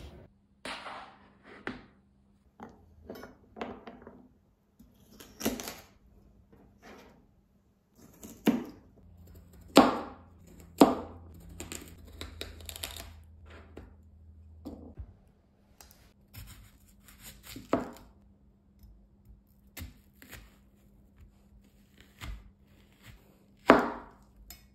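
Chef's knife cutting baby carrots and then an onion on a plastic cutting board: irregular sharp knocks of the blade striking the board, the loudest a pair about ten seconds in and one just before the end.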